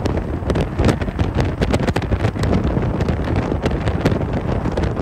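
Wind buffeting the microphone over vehicle road noise, a loud, rough rush with constant crackling.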